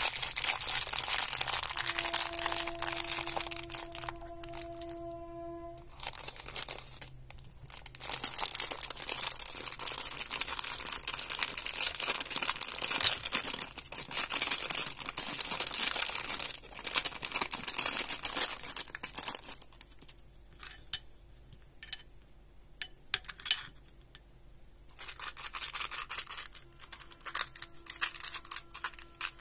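A plastic candy bag of gummy bears crinkling loudly as it is squeezed, opened and tipped out. Partway through the crinkling stops for a few seconds, leaving scattered light clicks and taps, then the crinkling starts again.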